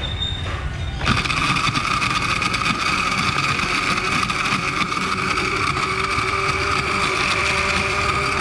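Electric countertop blender switched on about a second in and running steadily as it blends a thick drink mixture in its glass jar.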